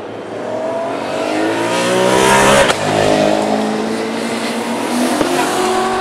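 Touring race car engines accelerating hard out of a chicane, the pitch climbing for about two seconds to a peak, a sudden break near the middle, then another rising run as more cars pull away.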